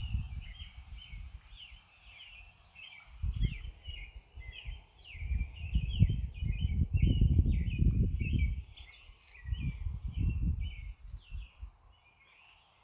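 Birds chirping continuously in a dense chorus of short, quick chirps, with gusts of low rumbling noise that come and go several times.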